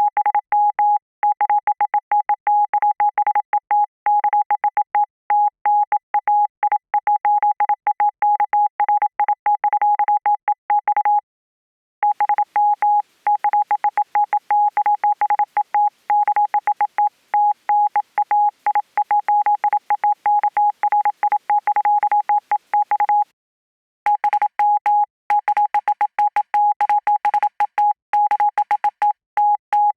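Morse code keyed as a single steady beep tone in rapid dots and dashes. It comes in three long runs, broken by pauses of about a second near the middle and again about two-thirds of the way in. The later runs have a faint static hiss behind the beeps.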